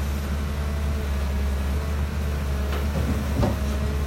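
Dump truck engine running with a steady low drone, with a brief knock or rattle about three and a half seconds in.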